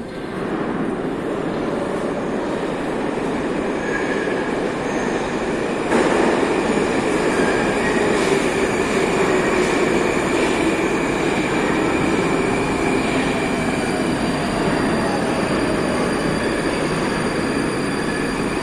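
Moscow metro train running through the station: a steady rumble with faint wheel squeal and several steady high tones over it, growing louder suddenly about six seconds in.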